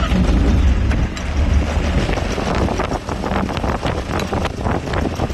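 Jabiru 3300 flat-six aircraft engine being started on its electronic ignition, turning the propeller over loud and uneven.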